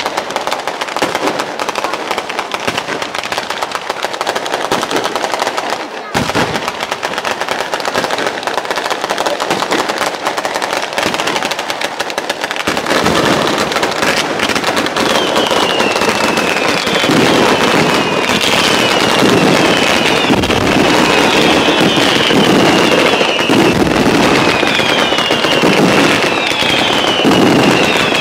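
A Sanseverese-style ground fireworks battery firing: a dense, rapid, continuous crackle of reports like machine-gun fire. About halfway through it grows fuller and louder, and falling whistles then repeat roughly once a second over the crackle.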